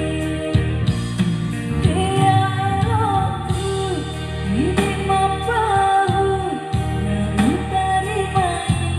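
A song with a lead singer, likely female, singing a melody with pitch bends over steady bass and keyboard-style backing.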